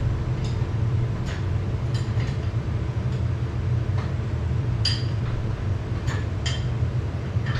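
Steady low machinery hum, with light metallic clinks of tools and metal parts being handled every second or so.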